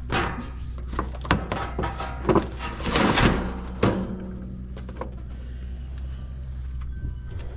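Knocks and rattles of a condenser's metal fan grille and top panel being lowered and seated onto the outdoor unit's cabinet, busiest in the first four seconds and then down to a few light ticks, over a steady low hum.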